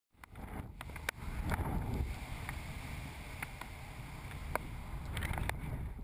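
Wind rushing over a GoPro mounted on a kite in flight, a steady low rumble broken by scattered sharp clicks.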